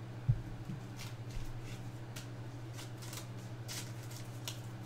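Trading cards being handled and slid past one another as a pack is flipped through: a scatter of soft, short rustles over a low steady hum, with a soft bump near the start.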